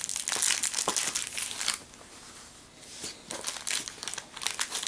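Clear plastic packaging crinkling as it is handled, in dense crackles. It goes quieter about two seconds in, then crinkles again about a second later.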